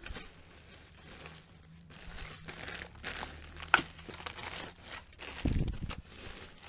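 Clear plastic bags crinkling and rustling as hands rummage through a pile of packaged cosmetics, with one sharp click about halfway through and a low thump near the end.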